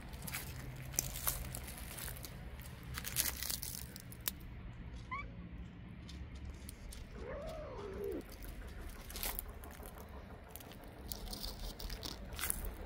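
A cat meows once, a single call that rises and falls in pitch, about seven seconds in, amid scattered rustling and clicking.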